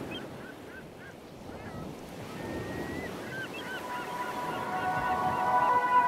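Birds calling in a quick series of short, curling cries over a steady wash of surf. Music with long held tones fades in during the last two seconds and grows louder.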